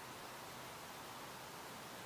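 Faint, even hiss with no thunder or other distinct sound: quiet night ambience between lightning flashes.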